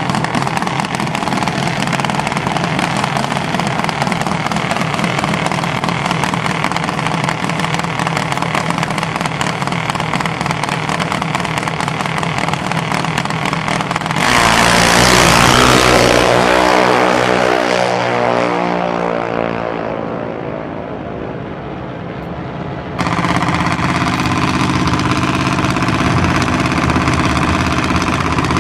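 Junior dragster single-cylinder engines idling. About halfway through, a junior dragster launches at full throttle: loud at first, then its engine note falls in pitch and fades as it pulls away down the track. An abrupt cut near the end brings back engines idling close by.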